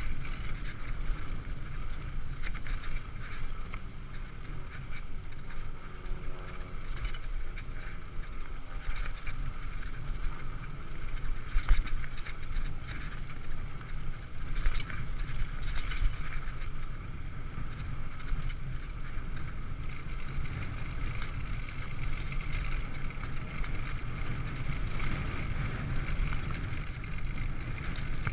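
Mountain bike rolling along a rough dirt-and-grass trail: a steady rumble and rattle of tyres and frame over the ground, with sharp knocks as it hits bumps, the loudest about midway.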